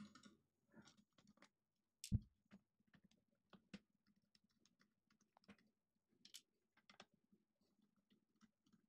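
Faint, scattered small clicks and ticks of a precision screwdriver turning out the little screws that hold a laptop battery, with the loudest click about two seconds in.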